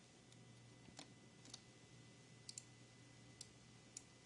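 Near silence with a faint steady hum and about six faint, scattered computer mouse clicks, two of them in quick succession.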